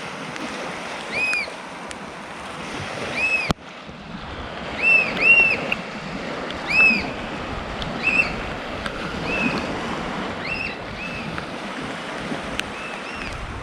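A bird calls repeatedly, about a dozen short, clear, arching notes, some in quick pairs, over a steady wash of surf and wind. A sharp click comes about three and a half seconds in.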